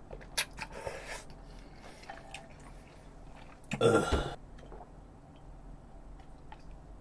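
Small slurping and chewing sounds from a spoonful of stew, then one loud burp about four seconds in.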